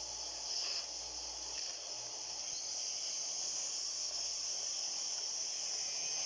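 CNC cutting machine running, giving a steady high-pitched hiss with no clear rhythm.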